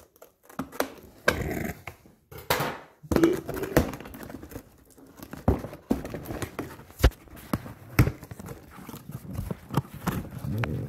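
A cardboard box being opened and unpacked by hand: cardboard and packing tape scraping and rustling, with scattered knocks and thumps as the box and its contents are handled. Two longer scraping stretches come in the first three seconds.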